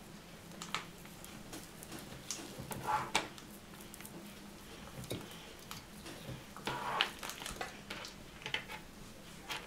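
Cooked sausage being pushed through the wire grid of a metal egg slicer over an enamel pot, the metal frame clinking and scraping against the pot every few seconds.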